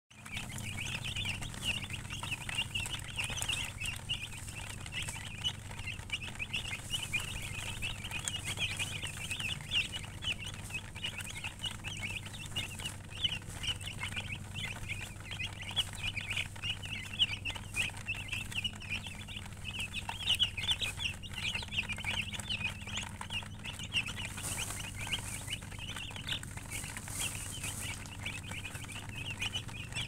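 A flock of domestic chicks peeping continuously, a dense overlapping chorus of short high-pitched chirps.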